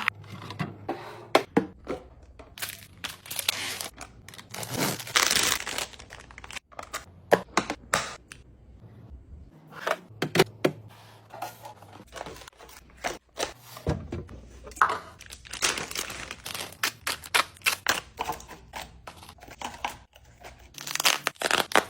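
Plastic grocery packaging crinkling and tearing, with items and containers clunking and tapping as they are set down during a fridge restock.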